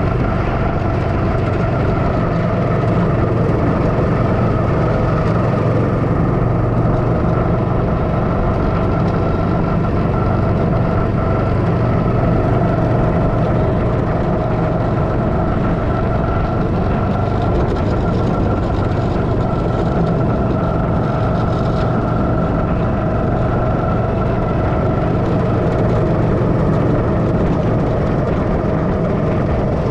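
Go-kart engine running at a steady, unchanging pitch, heard close up from the driver's seat.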